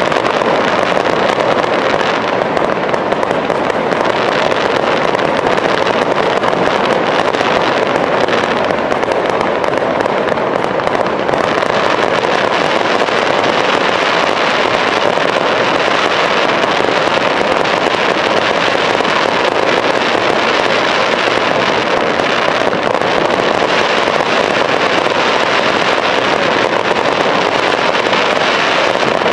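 Large fireworks display: a continuous, dense barrage of overlapping shell bursts and crackling, with no pause between them.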